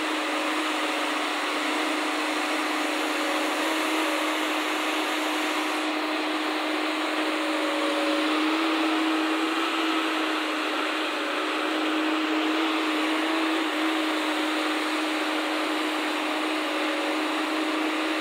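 JCB crawler excavator's diesel engine and hydraulics running steadily while it works, a constant drone with a steady hum that holds throughout.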